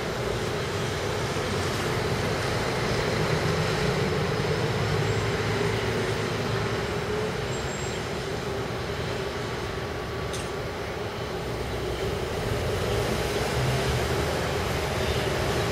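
Electric trains running along the elevated tracks, the last of them a red Siemens Taurus electric locomotive with double-deck coaches: a steady rumble of wheels with a constant mid-pitched hum. A short click comes about ten seconds in.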